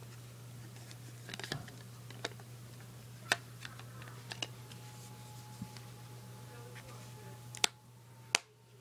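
Hard plastic phone case being pressed onto a Samsung Galaxy Note 2: scattered light clicks and taps as the shell's edges are worked over the phone, with two sharper snaps near the end as the case clips into place.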